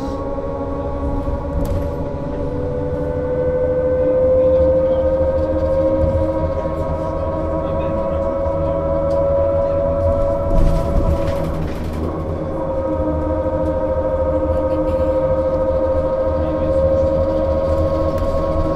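A 2001 Berkhof Premier AT 18 articulated trolleybus under way: its electric drive gives a steady whine with several pitches over road rumble, slowly rising in pitch as it gathers speed. About eleven seconds in, the whine breaks off briefly under a short clattering noise, then resumes.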